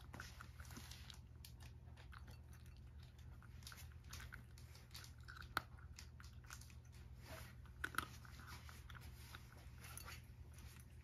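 Cat crunching and chewing dry kibble topped with bonito flakes from a ceramic bowl: faint, crisp crunches with two sharper clicks about five and a half and eight seconds in, over a low steady hum.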